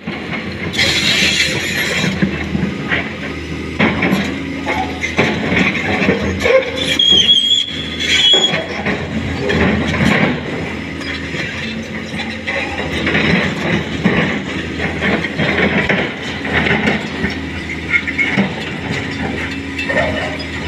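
Hydraulic excavator working: its diesel engine runs steadily under metallic clanks and creaks, with a brief high squeal about seven seconds in.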